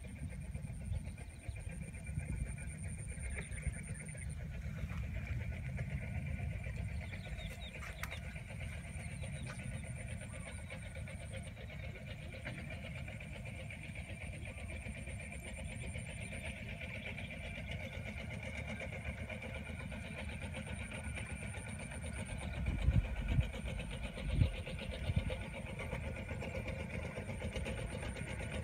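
Steady low rumble of outdoor ambience, with a thin high whine that comes and goes in stretches of a few seconds and two low thumps near the end.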